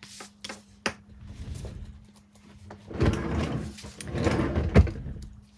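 A paper inking board and small cardstock pages being handled and slid off a tabletop: a few light taps in the first second, then about two seconds of rustling and scraping that end in a sharp knock.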